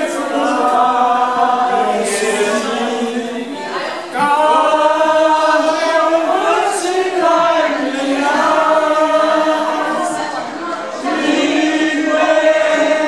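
A group of people singing together in long, held phrases, with short breaks between lines about four seconds in and again about ten and a half seconds in.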